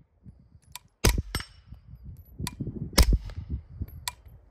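Suppressed 9mm carbine, a .45 suppressor fitted, firing single shots: two close together about a second in and another at about three seconds, with light metallic clicks between.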